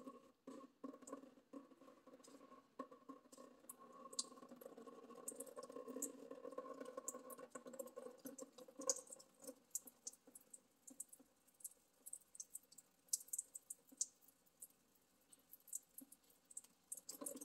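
Faint irregular clicks and pattering as the plastic fuel filter bowl of a Kubota B2301 diesel tractor is handled while diesel leaks out of the opened filter, over a faint steady hum that fades away about halfway through.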